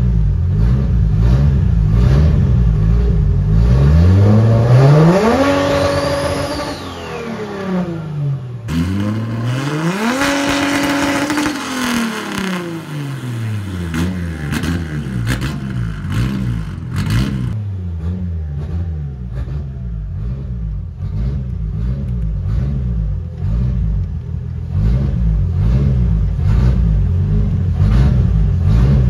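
Nissan RB20ET turbocharged straight-six revved twice up to its rev limiter near 5500 rpm, where the note levels off flat for about a second before dropping back to idle. This is followed by a long run of quick throttle blips.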